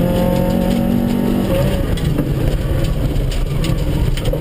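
Opel Corsa A 1.4SR rally car's four-cylinder engine heard from inside the cabin. It holds a steady note for about the first second and a half, then goes off the throttle with a rough, broken-up sound and some crackles through a tight corner, and picks up again near the end.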